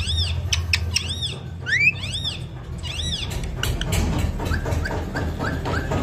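High calls that rise and fall, repeated about once a second, then a quick run of short rising chirps near the end, with scattered sharp clicks.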